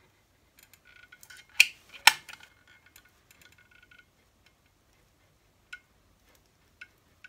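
Metal caulking gun clicking as its trigger is squeezed to run a bead of sealant, with a thin squeak under the clicks and two sharp clicks about one and a half and two seconds in. After that come a few scattered light ticks.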